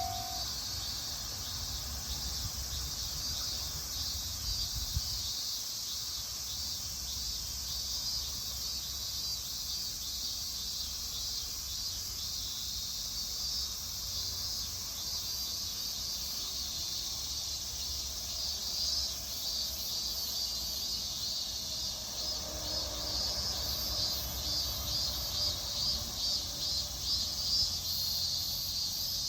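Insects chirping in a steady dense chorus, pulsing more distinctly in the latter part. A low rumble fades out about five seconds in. The level-crossing warning bell's ringing tone cuts off right at the start.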